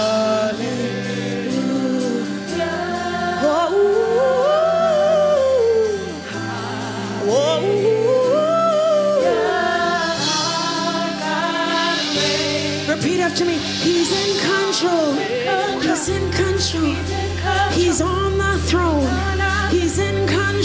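Live gospel worship music: a female lead singer sings long, sliding melodic lines over a band, with backing singers. The low accompaniment drops out and comes back in several times.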